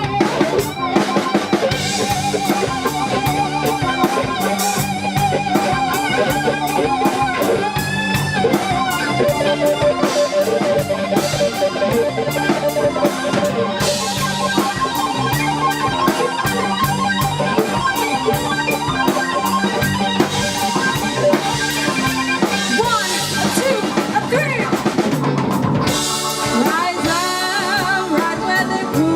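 Live band playing an instrumental passage: a drum kit keeps a steady beat under guitar, with a lead line that bends and wavers in pitch.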